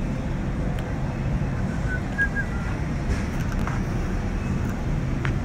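Steady low rumble of supermarket background noise, with faint footsteps of sneakers on a hard tile floor and a few short high squeaks about two seconds in.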